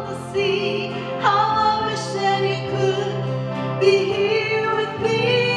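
A woman singing a slow song, holding notes with vibrato over steady instrumental accompaniment.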